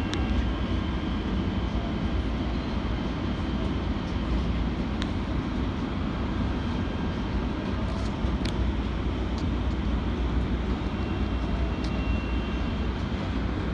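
Kinkisharyo P3010 light rail vehicle running along the track, heard from inside the cab: a steady rumble of wheels on rail and running gear, with a few brief sharp ticks.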